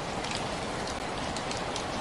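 Steady rain falling: an even hiss with many scattered, sharper drop ticks.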